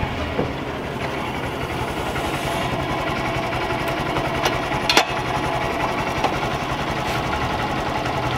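Motorcycle engine running steadily, with a sharp click about halfway through.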